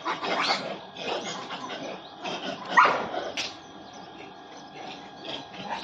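Dogs barking and yelping in a quick run of short calls, the loudest about three seconds in, then thinning out to a few faint ones.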